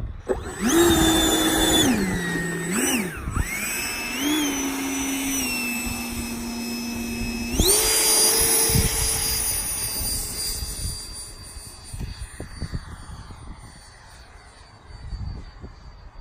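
Electric ducted fan of a FlexJet RC model jet whining as the throttle changes. Its pitch steps up and down several times in the first few seconds, jumps sharply about halfway through, then holds and slowly fades as the jet moves away. Wind rumbles on the microphone underneath.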